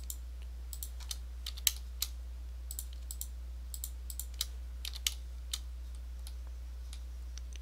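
Computer keyboard keys and mouse buttons clicking at irregular intervals, a few per second, as faces are filled in Blender with the F key. Under them runs a steady low hum.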